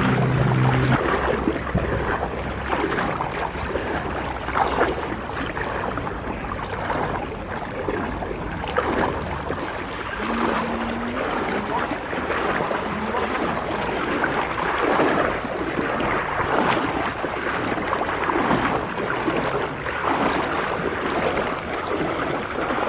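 Floodwater sloshing and splashing with uneven strokes as people wade knee-deep through it, over a steady rush of flowing water. A low, steady hum stops about a second in.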